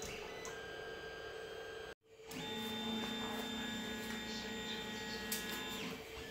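Creality CR-10 S5 3D printer running, its stepper motors whining in several steady tones over a constant hum. The sound drops out briefly about two seconds in, and the whine shifts pitch just before the end. This is loud stepper noise that TL Smoothers on the motor drivers have lowered only a little.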